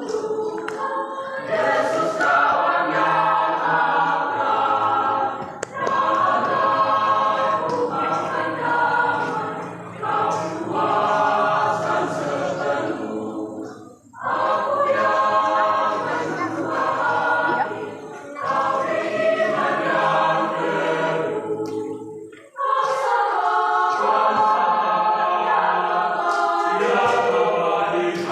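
A choir singing a Christian hymn in Indonesian, in long phrases with short breaks about every four seconds.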